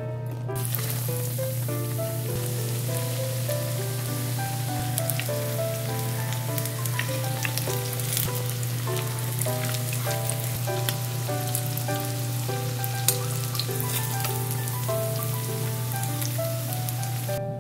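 Breaded patties shallow-frying in hot oil in a frying pan: a steady crackling sizzle that starts about half a second in and stops just before the end, over soft background music.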